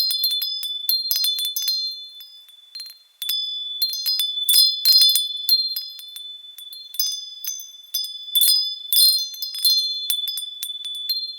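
Wind chimes striking irregularly, with high ringing tones that hang between strikes. They fade away briefly about two to three seconds in, then start again suddenly.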